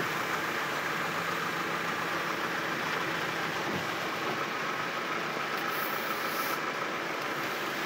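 Steady hiss and drone heard from inside a pickup truck's cab as it creeps along in heavy rain: the engine running low, with the hiss of rain and tyres on the wet road.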